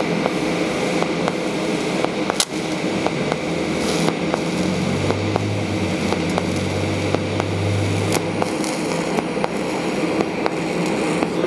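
TIG welding arc on DC electrode negative with triangle-wave pulse, melting a flux-coated aluminum stick electrode as filler on aluminum: a steady arc hiss and buzz with a faint regular tick about twice a second from the pulsing current.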